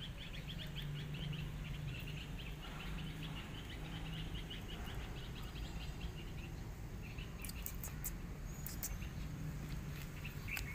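Birds chirping: a fast run of short, high, repeated notes through the first half, over a low steady hum, with a few sharp clicks in the second half.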